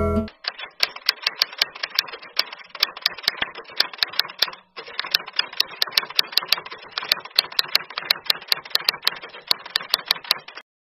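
Rapid, irregular clicking like keys being typed, about four clicks a second over a faint hiss, stopping abruptly near the end.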